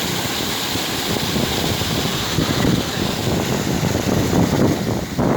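Waterfall water rushing steadily, with gusts of wind buffeting the microphone.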